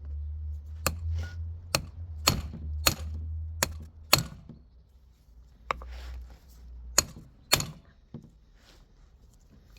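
About nine sharp mechanical clicks and knocks at uneven intervals, over a low hum that fades out about seven seconds in.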